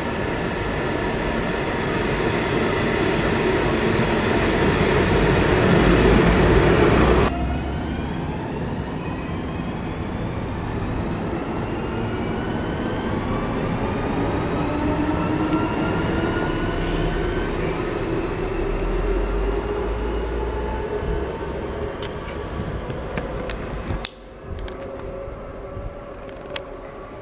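Electric train running past, its noise building for about seven seconds before cutting off suddenly; then electric traction motors whining in several gliding tones over steady running noise, until another sudden cut near the end.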